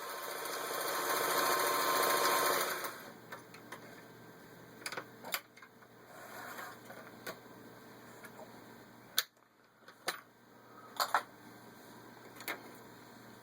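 Singer 503A sewing machine stitching the blind stitch cam pattern, getting louder and then stopping about three seconds in. A scattered series of sharp clicks and knocks follows.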